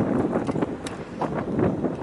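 Wind buffeting the microphone in irregular gusts, with a single light tick just under a second in.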